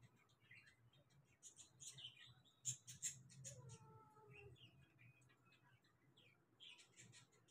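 Faint high squeaks and a short, bending mew from two- to three-day-old kittens in the nest, with a few sharp clicks about three seconds in.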